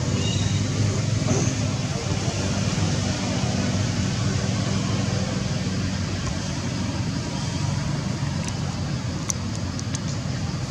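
Steady low rumble and hiss of outdoor background noise, with a few sharp clicks near the end.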